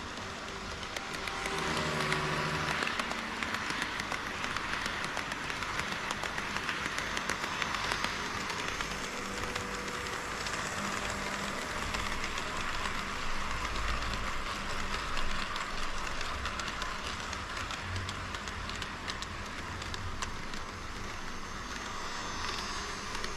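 HO scale model trains running on KATO Unitrack: a steady rolling rattle of small metal wheels with quick clicks over the rail joints, swelling as a pair of DD51 diesel models passes close by.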